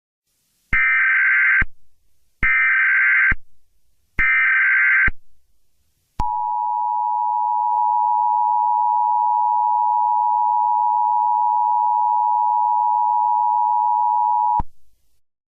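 Emergency Alert System SAME header: three bursts of data tones, each about a second long. They are followed by the EAS attention signal, two steady tones sounded together and held about eight seconds before cutting off sharply.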